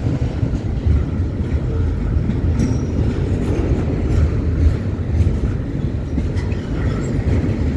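Double-stack intermodal freight train rolling past, its loaded well cars' wheels making a steady low rumble on the rails.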